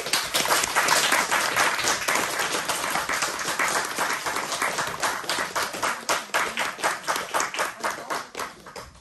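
Applause from a small group of people clapping their hands, starting suddenly and thinning out before it stops near the end.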